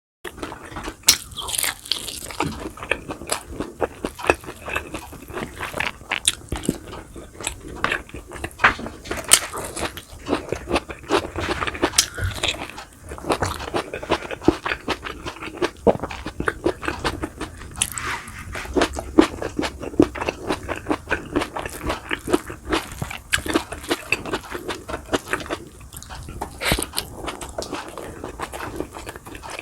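Close-miked eating: crunching and chewing of fried boneless milkfish (daing na bangus) and rice, with many sharp crunches throughout.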